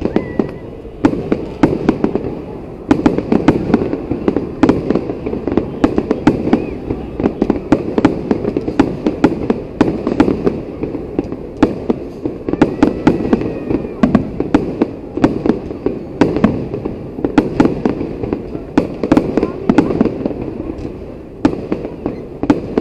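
Fireworks display: aerial shells bursting in a dense run of sharp bangs, several a second, over a steady rumble of reports. The bangs thicken about a second in and go on without a break.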